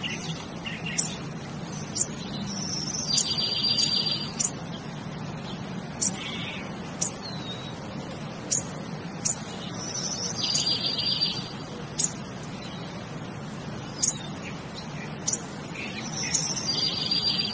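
Birds calling. A short high song of about a second, a whistle followed by a fast trill, comes three times about seven seconds apart, with brief sharp chirps in between.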